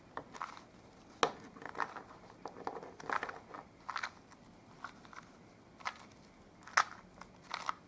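2x2 Rubik's cube being twisted by hand: a dozen or so short plastic clacks at uneven intervals as the layers turn through an algorithm, the loudest near the end.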